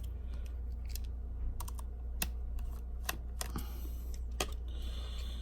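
Small irregular clicks and taps of a precision screwdriver and metal tools working the screws of an iPhone 6 Plus battery connector plate, over a steady low hum.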